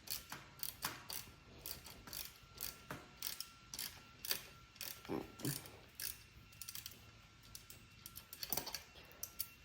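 Irregular metal clicks and clinks from hand tools and small brake parts being fitted to a bicycle's rear brake, with a quicker run of clicks near the end.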